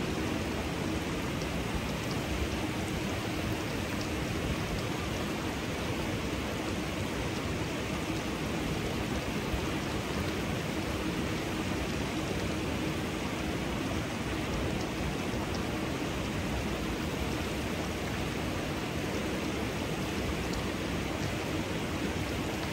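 Steady rush of water from a small cascade beside a hot spring pool.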